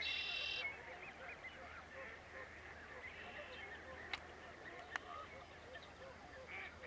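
A large flock of Canada geese on open water honking and calling continuously, many overlapping calls, with one louder, higher call right at the start. Two sharp clicks about four and five seconds in.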